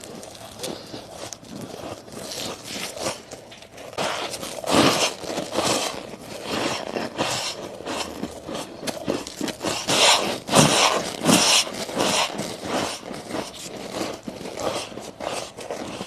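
Close-up chewing and crunching of soft frost ice: irregular crunchy, scraping bites, the loudest about five seconds in and again between about ten and eleven and a half seconds.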